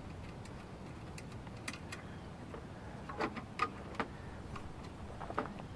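Faint, scattered clicks and light metallic ticks of a screwdriver working the retaining screws on a network-switch module's metal faceplate, a little busier about three to four seconds in, over a steady low hiss.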